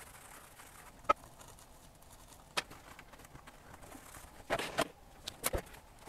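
Light handling noise as hands move a paper towel over the Sony ICF-2010 radio's circuit board and plastic case: soft rustling with a sharp click about a second in, another near the middle, and a few clicks close together near the end.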